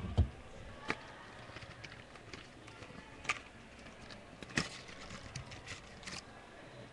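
A small cardboard candy-toy box being opened and handled by hand: a sharp tap right at the start, then scattered light clicks and rustles of the cardboard and the plastic toy inside.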